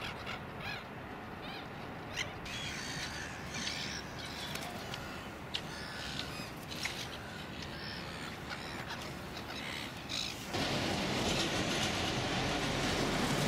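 A roosting flock of gulls calling: many short, high calls overlapping, one after another. About ten and a half seconds in, the calls stop abruptly and a louder, steady outdoor rush takes over.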